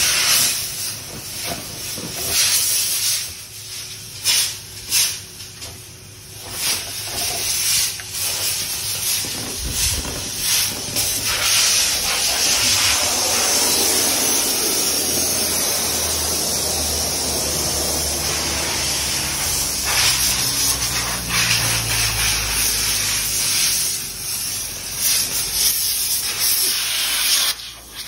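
Compressed air hissing from an air hose: a series of short blasts, then a long steady blast.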